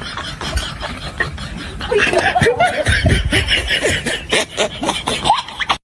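People laughing and snickering, louder from about two seconds in, over a background of many small clicks and rustling.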